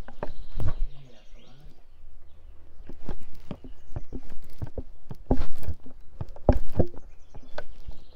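Hands slapping and tapping on skin in a percussive massage: a run of irregular sharp slaps, quieter for a couple of seconds about a second in, then louder again, with the strongest slaps past the middle.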